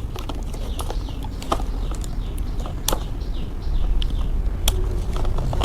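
Hard plastic parts of an ab roller wheel clicking and knocking as its handle tubes are handled and fitted, a few sharp clicks standing out, with birds chirping repeatedly in the background.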